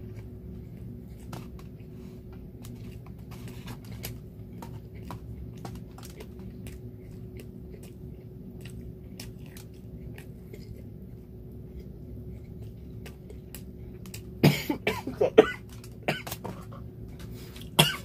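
A man chewing food with faint, scattered mouth clicks, then a fit of several loud coughs about fourteen seconds in, and another cough near the end.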